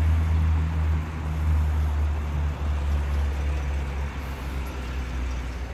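The 6.2-litre V8 of a 2017 Chevrolet Silverado 1500 idling: a low, steady rumble that fades a little toward the end.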